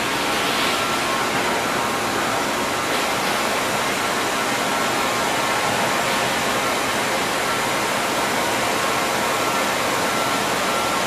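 Steady running noise of a stainless steel tube mill and its factory machinery: an even drone and hiss with a thin, steady whine.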